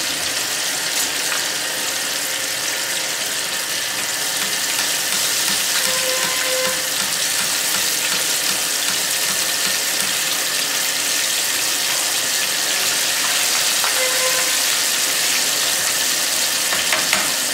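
Flour-coated chicken pieces deep-frying in hot oil in a frying pan over a high gas flame, a steady sizzle. Metal tongs click lightly against the pan now and then as the pieces are moved.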